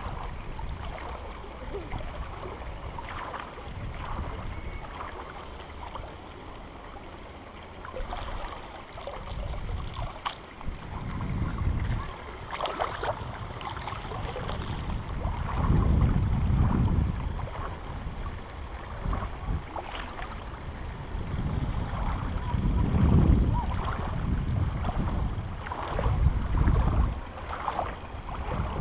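River water sloshing and splashing around a person wading through a shallow river, with small splashes throughout. From about a third of the way in, low rumbling surges of water and wind on the microphone come several times.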